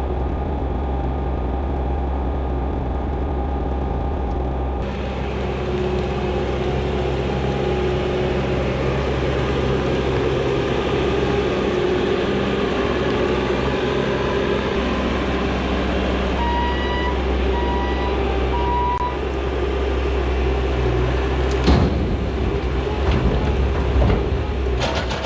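A heavy machine's diesel engine running steadily under work, with a few sharp knocks near the end.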